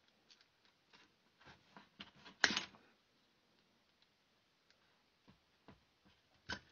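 Pliers clicking and scraping against a stuck axle pin in the stock plastic steering hub of a 1:18 scale RC truck as the pin is worked loose, with one louder sharp snap about two and a half seconds in.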